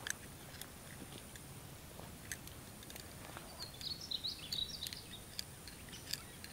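Faint outdoor background with a short flurry of bird chirps about four seconds in and a few scattered faint clicks.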